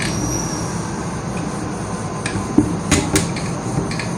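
A duster rubbing across a whiteboard as it is wiped, with a few light knocks over a steady low hum.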